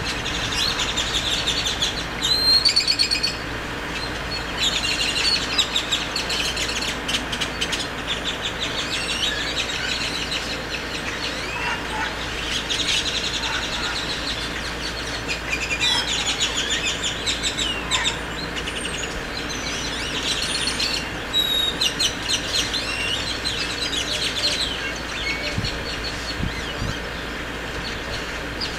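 Birds chirping, in repeated quick runs of high chirps that come every few seconds, over a steady low background hum.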